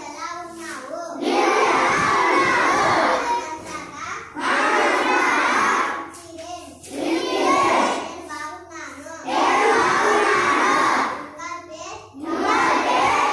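Children's call-and-response recitation: one girl's voice reads out a short phrase, then the whole class repeats it loudly in unison. The exchange goes back and forth about five times. These are likely Tamil phrases being learned.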